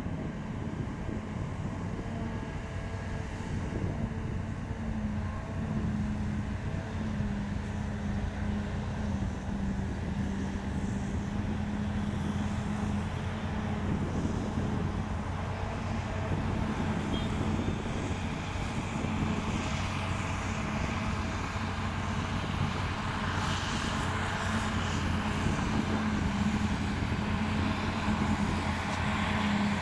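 Heavy diesel engine of large field machinery running steadily under load, its drone wavering slightly in pitch, with a rising hiss in the second half.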